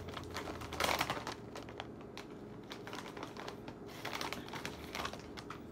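Plastic chip bag crinkling and rustling as a hand rummages inside it: a run of small irregular clicks, thickest in the first second or so and sparser after.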